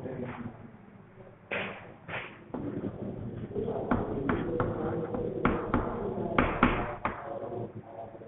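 Chalk writing on a blackboard: a string of sharp taps and short scrapes as letters are struck onto the board, clustered through the middle.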